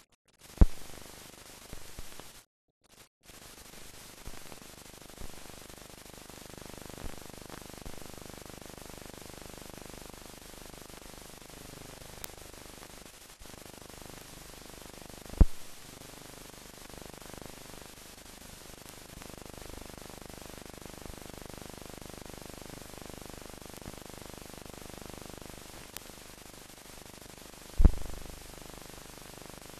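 Steady hiss of a silent film transfer with no recorded sound, broken by three sharp pops: about half a second in, about halfway through, and near the end.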